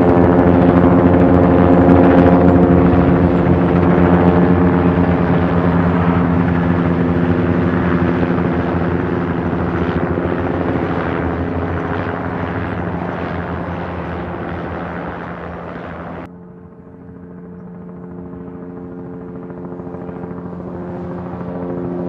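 Helicopter flying: rapid rotor chop over a steady engine drone, loud at first and fading away gradually. About sixteen seconds in it cuts off abruptly, and a second, quieter helicopter sound starts and grows louder toward the end.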